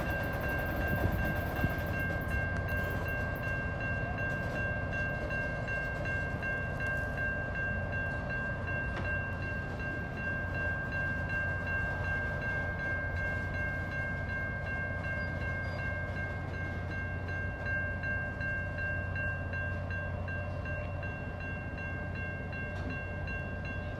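An FL9 diesel locomotive rumbles as it pulls away through a grade crossing. Over it, the crossing signal sounds steady ringing tones that hold the same pitch throughout.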